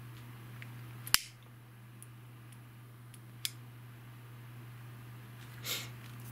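Small handling noises from a plastic lighter and a cardboard fishing-line box: one sharp click about a second in, a smaller click midway, and a brief rustle near the end, over a steady low hum.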